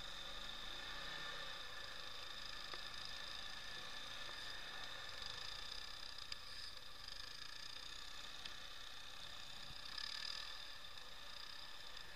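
ATV engine running at a steady speed under way, heard faintly as an even hum with a steady high whine and an occasional light tick.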